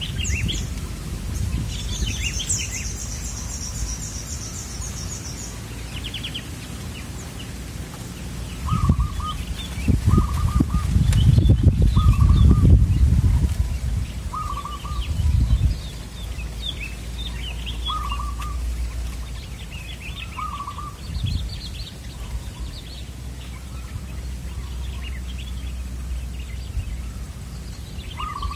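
Zebra doves (perkutut) cooing in short trilled phrases, repeated every second or few from about a third of the way in, while smaller birds chirp higher up and a high buzzing trill sounds near the start. A low rumble swells about a third of the way in and is the loudest sound.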